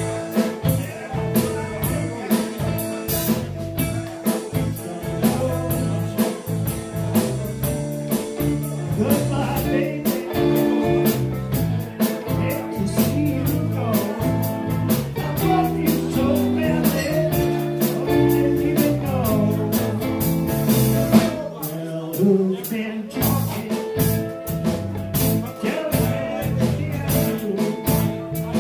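Live blues band playing: electric guitars, electric bass and drum kit, with a steady drum beat.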